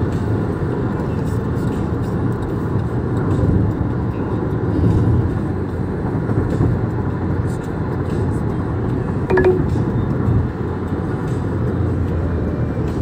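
Steady road and tyre noise of a car driving at highway speed, heard from inside the cabin as a low rumble. A short beep sounds about nine seconds in.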